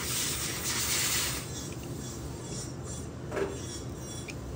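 Faint handling sounds of a full-arch dental implant prosthesis turned in the fingers: a soft hiss of rubbing over the first second and a half, then a small hard click about three and a half seconds in and a fainter one just before the end.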